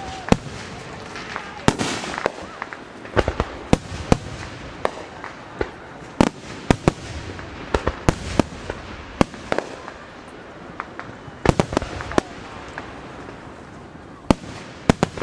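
Aerial fireworks going off: an irregular series of sharp bangs, some coming in quick clusters, over a steady outdoor background.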